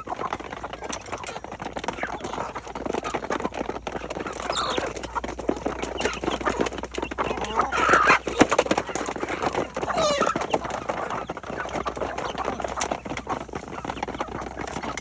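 Chickens clucking and calling while feeding, over a dense run of small clicks and taps. Louder calls stand out about four and a half, eight and ten seconds in, the last one sliding down in pitch.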